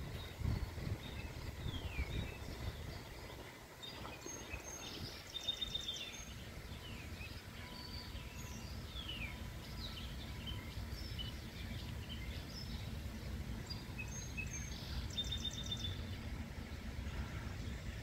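Outdoor ambience: scattered short songbird chirps and calls, with a quick trilling call about five seconds in and again near the end, over a steady low rumble of street traffic.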